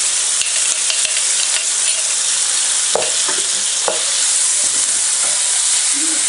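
Kimchi sizzling loudly in a hot oiled frying pan, stirred with a metal slotted spatula that scrapes and knocks against the pan a couple of times about halfway through.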